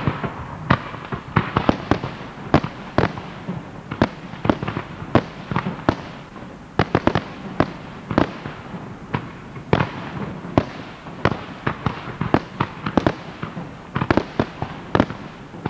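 Aerial firework shells bursting in quick succession during a large display, a dense run of sharp bangs, several a second, with no let-up.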